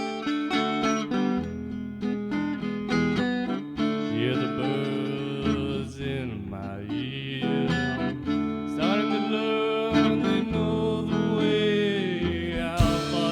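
Instrumental rock song intro: picked guitar notes over bass, with gliding notes in the middle and drums coming in near the end.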